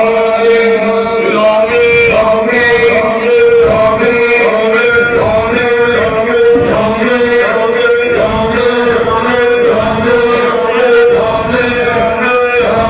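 Arabic song with male voices chanting in chorus over a steady held drone, with a regular beat about twice a second.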